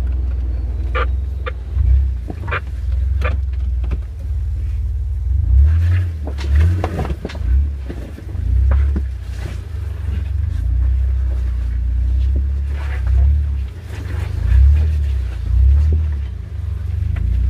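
Jeep Rubicon's engine pulling at low revs while rock crawling, its low rumble swelling and easing with the throttle. Scattered knocks and clunks as the tyres and body go over the rocks.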